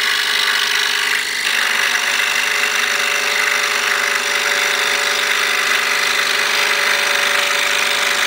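Excalibur 21-inch scroll saw running steadily at medium speed, its No. 5 reverse-tooth blade cutting a bevel through a wooden plaque, with a brief dip in the sound about a second in.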